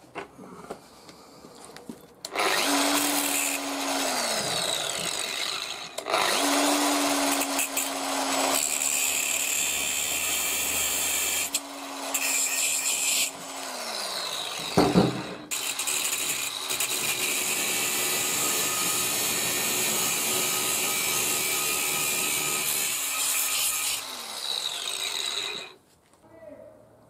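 Angle grinder grinding a steel bolt clamped in a bench vise, switched on and run in several bursts, its motor tone falling away as it winds down after each one. A single sharp knock comes in one of the gaps.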